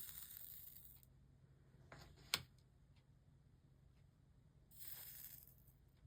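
Soldering iron sizzling as it melts solder into fluxed lead came joints: two brief hissing bursts about a second long, with a sharp click between them.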